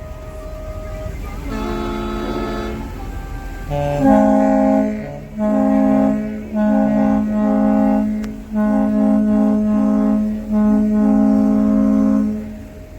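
A tune of long held notes with a horn-like tone, often two notes sounding together, played in phrases with short breaks, over a steady low rumble.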